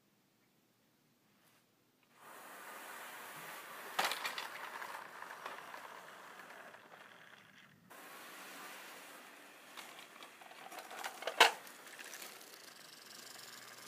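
HO scale model trains running along the track with a steady rolling rattle, silent for the first two seconds. A sharp knock about four seconds in and a louder one about eleven seconds in are model cars and locomotives colliding in staged derailments.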